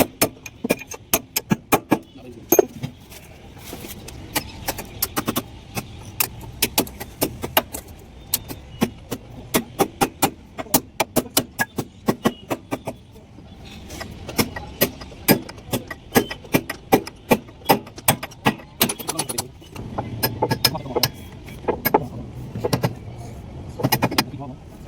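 Rapid, irregular metal clicks and knocks, several a second, from tools working on metal during axle repair, over a steady low engine hum.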